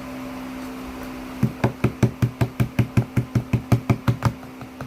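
A quick, even run of about sixteen knocks on a hard surface, roughly six a second, lasting about three seconds, then a few fainter knocks near the end. A steady low hum runs underneath.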